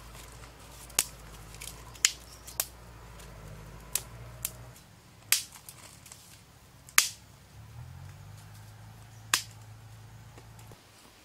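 Dry twigs and sticks snapping as they are broken by hand: about eight sharp cracks at irregular intervals, over a low steady hum that cuts off near the end.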